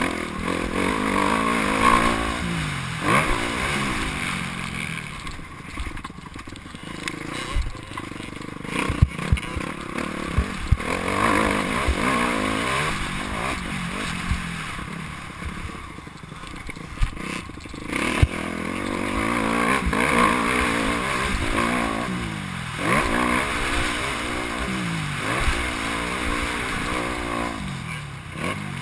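Motocross bike engine heard from the rider's helmet, revving up and dropping back again and again as the rider accelerates, shifts and backs off around a dirt track. A few sharp knocks stand out about a third of the way through.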